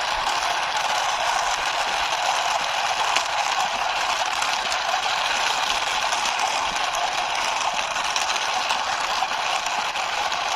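Toy racing car pushed by hand along a wall, its plastic wheels and gears rattling in a steady, dense clatter.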